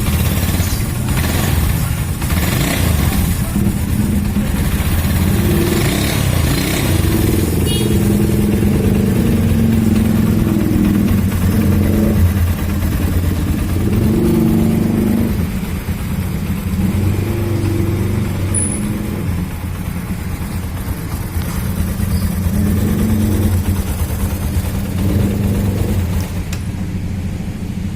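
Yamaha Scorpio Z's single-cylinder four-stroke engine running, its speed rising and falling a little.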